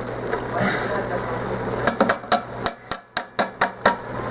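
A quick run of about eight sharp knocks against the Instant Pot's inner pot as mushrooms are added, over a steady low hum.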